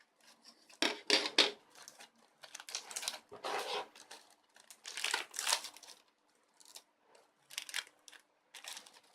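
Plastic crinkling and rustling as it is handled, in irregular short bursts with brief pauses between them.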